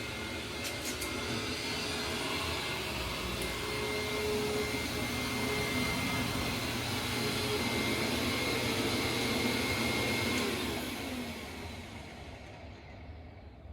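Hoover WindTunnel Supreme upright vacuum cleaner running steadily with a high motor whine. About ten seconds in it is switched off and the motor winds down, its pitch falling as it fades.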